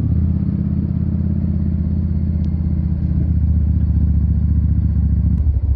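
Yamaha XVS650 Drag Star's V-twin engine running steadily under way, its sound thinning out just before the end.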